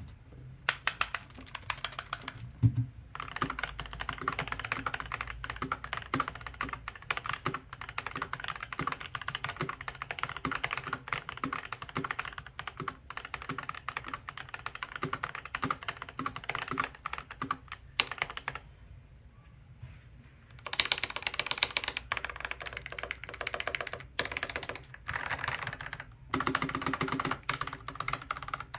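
Typing on a tape-modded Keychron V3 mechanical keyboard with prelubed Vertex V1 switches and stock stabilisers, a fast run of keystrokes with a deep sound, low in pitch for a keyboard. The typing stops for about two seconds roughly two-thirds of the way through, then picks up again with a quick flurry of keystrokes.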